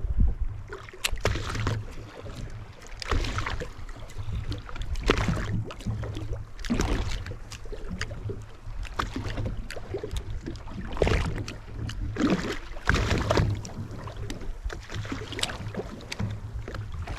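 Wind and water noise on a boat at sea: irregular gusts and rushes over a low steady rumble.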